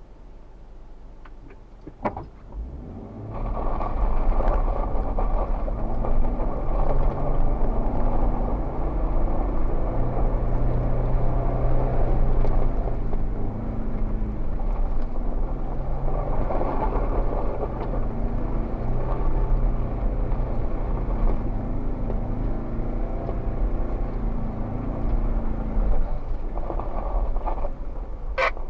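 Jeep Wrangler Rubicon's V6 engine working under load as the Jeep climbs a trail, its note rising and falling with the throttle. It comes in about three seconds in after a single click, and there is a sharp click near the end.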